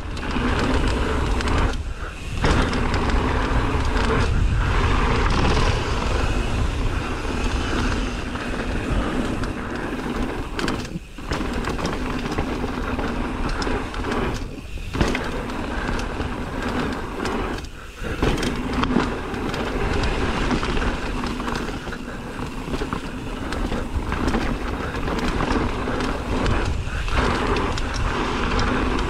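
Mountain bike descending a rough downhill trail: steady wind rush on the camera microphone with tyre and bike rattle, dipping briefly a few times.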